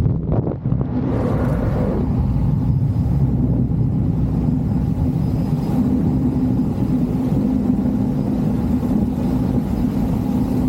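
Steady drone of a Cessna Caravan's turboprop engine and propeller, with rushing air over it.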